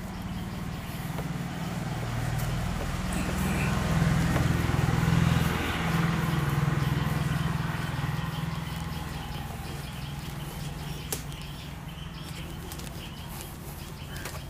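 A low engine drone swells to its loudest about five seconds in and slowly fades, as a passing vehicle would, over the soft rubbing of a whiteboard being wiped clean.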